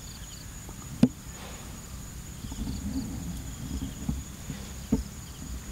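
Insects chirping, with a steady high-pitched whine, broken by a sharp knock about a second in and a softer one near the end.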